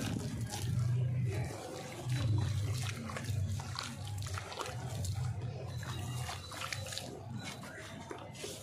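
A dry sand-cement chunk pushed by hand into a tub of watery grey slurry: wet sloshing and gurgling, with many small crackling pops as the soaking block gives off air bubbles.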